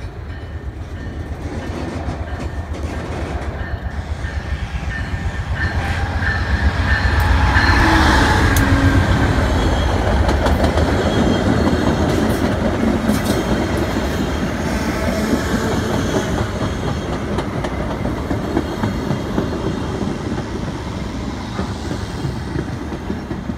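VIA Rail passenger train passing close by. The diesel locomotive's rumble builds to its loudest about eight seconds in. Then the LRC coaches roll past with a steady clickety-clack of wheels over the rail joints, slowly fading.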